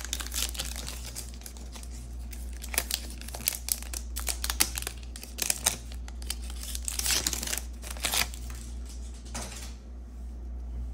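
Foil wrapper of a Topps baseball card pack crinkling as it is handled and the cards are slid out of it, in irregular crackles that die away about nine seconds in.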